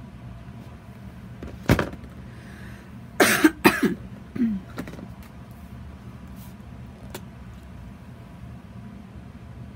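A sharp click, then about a second and a half later a person coughing two or three times, followed by a short throat-clearing sound with falling pitch, over a steady low hum.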